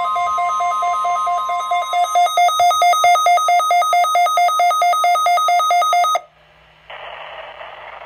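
Midland weather radios sounding a NOAA Weather Radio Required Weekly Test alarm. A steady 1050 Hz warning alarm tone ends about two seconds in, while loud pulsing electronic beeps carry on and cut off suddenly about six seconds in. After a brief pause, the radio voice begins reading the test message.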